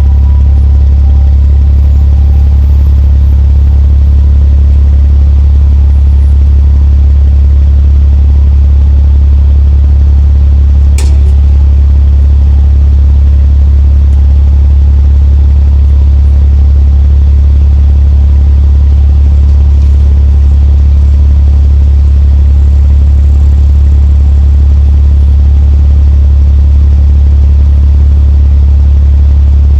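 Nissan Skyline R34 GT-t's turbocharged straight-six engine running with a steady low drone at an unchanging engine speed. A single sharp click about eleven seconds in.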